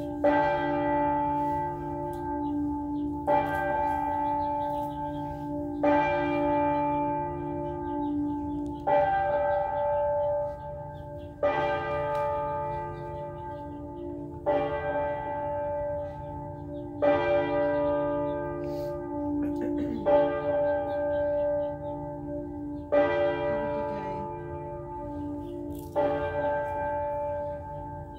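A large bell struck slowly, about ten strokes roughly three seconds apart, each stroke ringing on and fading into the next.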